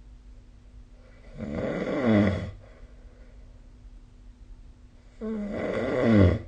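A person snoring: two snores about four seconds apart, each growing louder over about a second, its pitch falling toward the end, then cutting off sharply.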